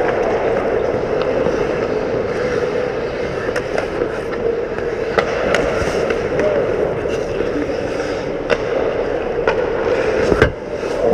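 Ice hockey play around the goal: hockey skates scraping and carving the ice over a steady rink noise, with sharp clacks from sticks, puck and goalie pads every couple of seconds. The loudest clack comes near the end.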